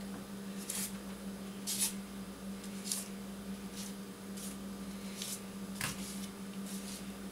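Bare feet smearing paint across stiff paper laid over a plastic floor sheet: a string of short, soft scuffs and squishes, about one a second, over a steady low hum.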